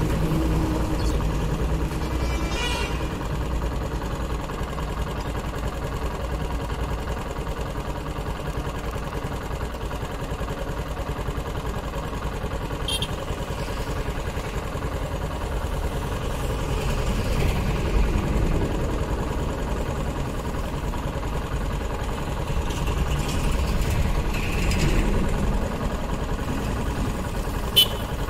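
TVS XL100 moped's small single-cylinder four-stroke engine idling steadily, with a sharp click near the end. The moped has a misfire ('missing') problem and won't pick up, which is later blamed on a loose wiring connection.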